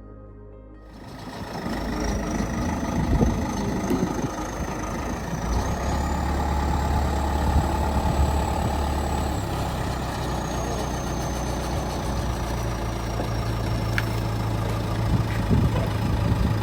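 A large engine running steadily, its pitch stepping up about five seconds in and easing back down in the second half, with a faint high whine that rises and falls along with it.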